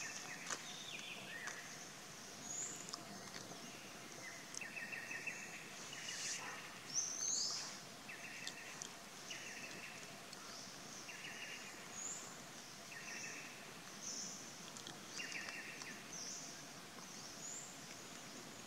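Forest ambience of wild animal calls: short, high chirps recur every second or two, alternating with a buzzing trill lasting under a second, over a steady hiss.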